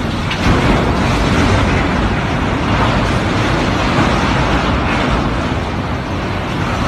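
Loud, continuous rumbling and grinding as a passenger ferry's bow crushes into a steel container gantry crane on the quay, mixed with storm wind buffeting the microphone.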